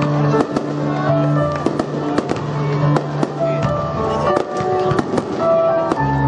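Display fireworks bursting over and over, many sharp cracks in quick succession, over choral music with long held chords.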